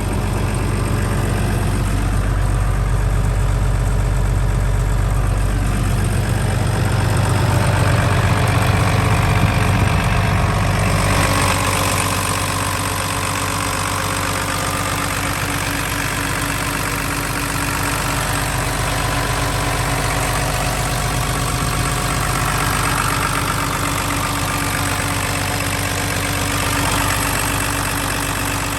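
Cat M316C wheeled excavator's Tier 3 diesel engine idling steadily. About eleven seconds in, the deep drone weakens and a higher hiss comes up.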